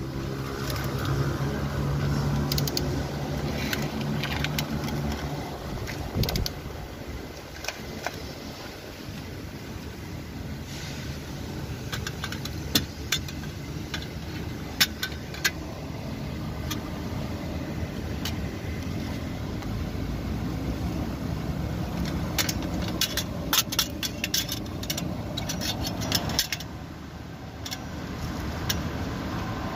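A steady mechanical hum, strongest in the first few seconds, with scattered sharp clicks and short runs of rapid clicking from hand tools working on the engine's belt pulleys.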